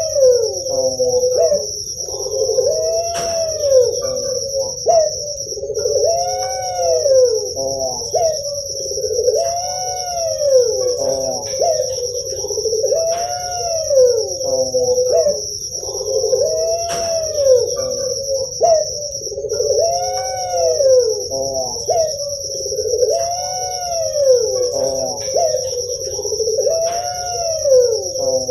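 Puter pelung (Barbary dove) cooing its long rolling call over and over, about one call every three and a half seconds. A steady high-pitched shrill tone runs underneath.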